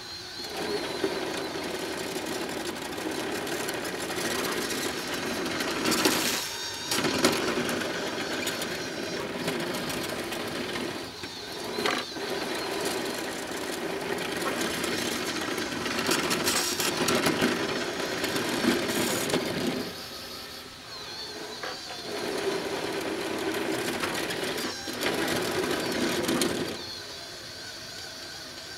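Scratch-built radio-controlled bulldozer's small drive motors and gearboxes whining as it tracks along pushing dirt with its blade. The whine cuts out briefly several times as the machine stops and starts.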